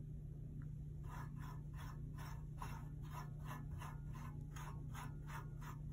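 Small brush swept in quick, light strokes across the metal grille of a nail dust collector, about three scratchy strokes a second, starting about a second in, over a steady low hum.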